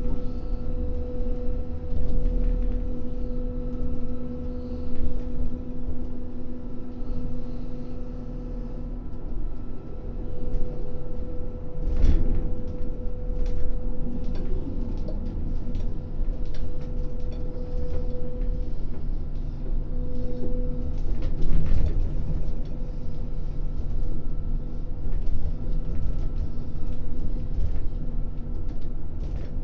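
Ship's crane machinery running under load, heard from up in the crane: a steady low rumble with a humming tone that stops about two-thirds of the way in, and a couple of knocks, as the crane swings its grab bucket.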